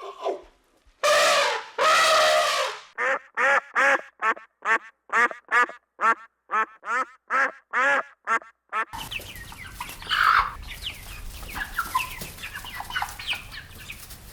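Duck calling: one long drawn call, then a run of short quacks at about two a second. About nine seconds in the sound cuts to a steady hiss with many quick high chirps.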